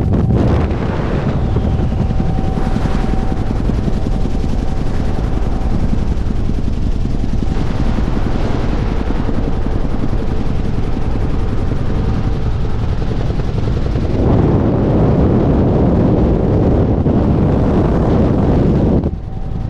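Huey helicopter in flight: the rapid, steady chop of its two-bladed main rotor over turbine noise, heard close up. About two-thirds of the way through it gets louder and rougher.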